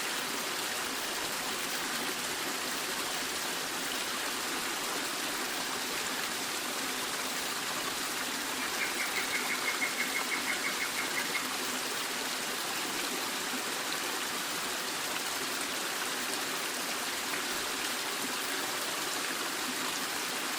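Waterfall sound effect: a steady rush of falling water. Around the middle, a quick high trill of about a dozen notes sounds over it for two to three seconds.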